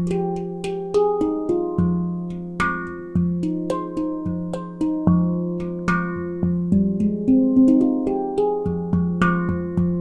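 McCarthy nitrided-steel handpan, 9 notes tuned to F Low Pygmy, played with the hands: a steady flow of struck notes that ring on and overlap, a low note sounding again and again beneath lighter, higher taps.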